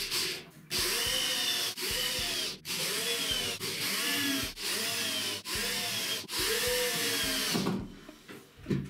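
Electric drill boring into a plywood lid in about eight short bursts, each a second or less with the last a little longer. The motor speeds up and slows down with the trigger on each run.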